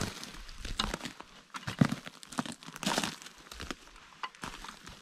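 Close, irregular rustling and crunching, with sharper crackles about two and three seconds in.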